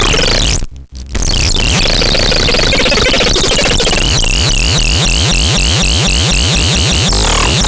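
Loud, dense electronic music with a brief cut-out about a second in. After that come many repeating pitch sweeps over rapid, quickening low downward glides.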